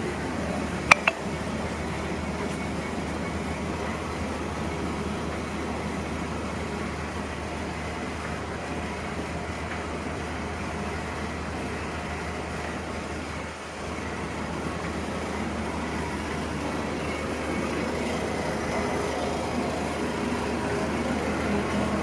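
Horizontal boring machine running with a steady hum, with two sharp clicks about a second in.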